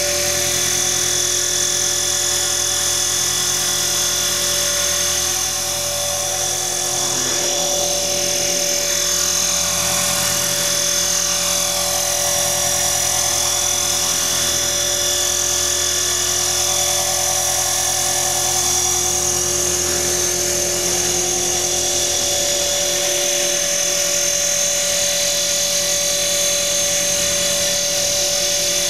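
Align T-Rex 450 XL electric RC helicopter hovering low: the steady high whine of its electric motor and gears with the whir of its rotor blades, the pitch wavering slightly now and then.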